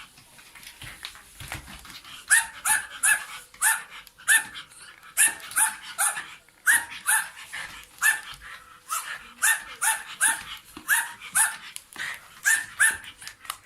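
A dog barking repeatedly at a vacuum cleaner head: short, high-pitched barks in quick runs of two to four, with a brief lull early on.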